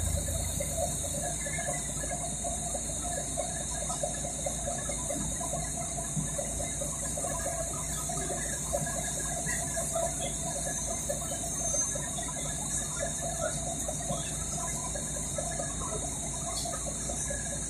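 City bus heard from inside the passenger cabin: the engine runs with a steady low rumble, and the fittings rattle lightly with small scattered ticks over a constant high hiss.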